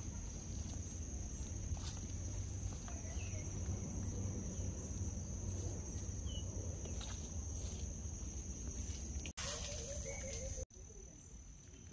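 Steady high-pitched drone of insects in the hillside vegetation over a low rumble, with faint footsteps on wet dirt steps. The sound cuts out briefly twice near the end and is quieter after.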